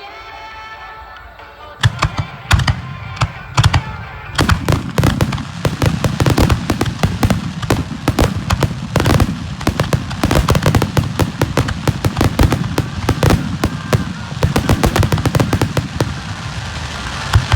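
Fireworks finale: after a couple of seconds of music, aerial shells start bursting close overhead and build into a continuous rapid barrage of bangs, several a second.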